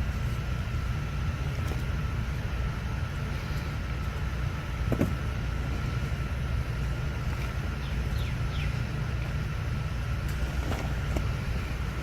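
Steady low rumble with a faint, constant high tone above it; a few light knocks about five seconds in, and brief falling chirps about eight seconds in.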